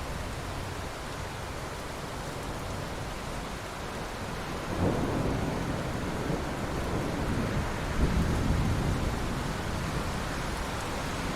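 Steady heavy rain with thunder: a rumble of thunder swells a little under five seconds in, and a second, louder roll follows about three seconds later, then dies away under the rain.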